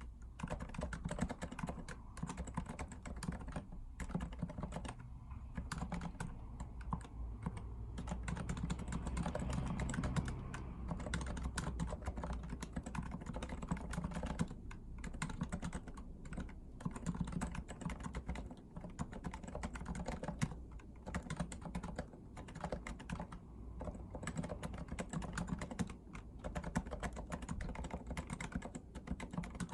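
Continuous fast typing on a REALFORCE R2 PFU Limited Edition keyboard with Topre electrostatic capacitive switches: a dense run of keystrokes with a few brief pauses.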